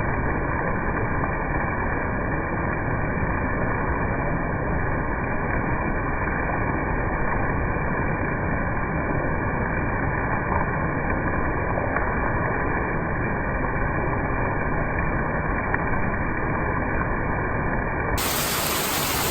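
Steady, even rush of heavy rain, dull and muffled at first, turning brighter and fuller near the end.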